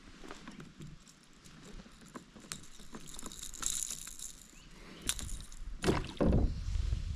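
Scattered knocks, clicks and rustling of a person wading through a river, with a splashy hiss about halfway through and two louder knocks near the end, followed by a low rumble.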